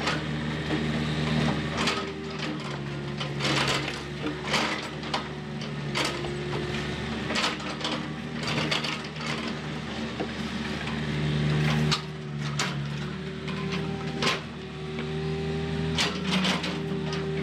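Volvo compact excavator's diesel engine running steadily under hydraulic load while the steel bucket digs, with frequent short knocks and scrapes as it bites into soil and stones.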